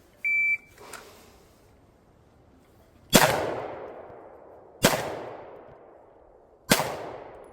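A shot timer's short, high start beep, then three pistol shots fired about two seconds apart, each followed by a long echo.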